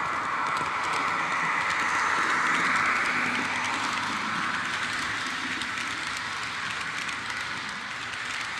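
Märklin H0 model train running along the track: a steady rushing roll of wheels and motor that swells to a peak about three seconds in, then slowly fades, with faint clicks.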